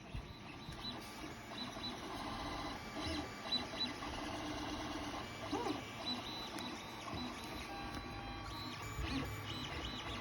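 3D printer running, its stepper motors whining in short tones that shift in pitch as the print head moves, with one quick rise and fall partway through.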